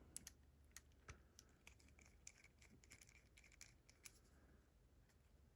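Faint, irregular metallic clicks and ticks of lock-picking tools working in a pin-tumbler lock, stopping about four seconds in.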